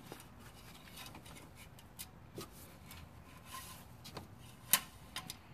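Light rubbing and scattered small clicks of a Billet Technologies oil dipstick being slid down into its tube by hand, with a sharper click about three-quarters of the way through.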